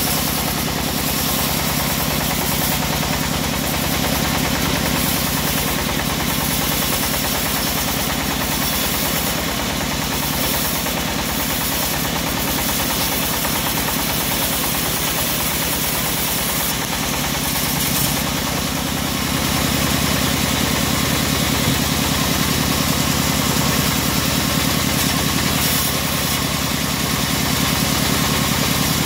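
Homemade bandsaw mill running, its band blade sawing lengthwise through a mahogany log. A steady mechanical drone that grows slightly louder about two-thirds of the way through.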